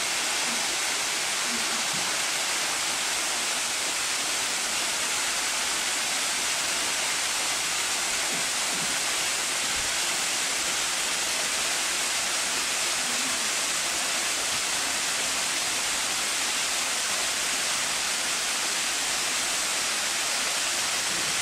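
Water pouring down a stepped stone cascade waterfall: a steady, even rush of falling water that does not change.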